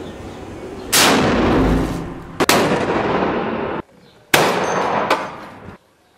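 Three heavy rifle shots fired from inside a room, a second and a half to two seconds apart, each ringing out into a long echoing tail, with a fainter crack after the third; the sound cuts off abruptly twice between shots.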